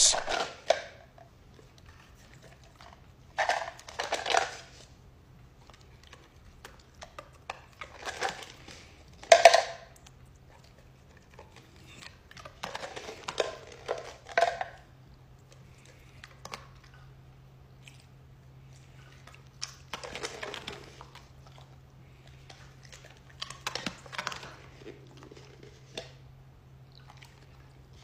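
A Doberman crunching and chewing treats fed from a hand, in short bouts every few seconds, over a faint steady hum.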